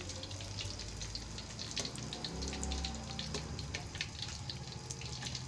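Hot cooking oil in a wok crackling and sizzling with many small sharp pops as fried fish is lifted out with a metal spatula and slotted ladle.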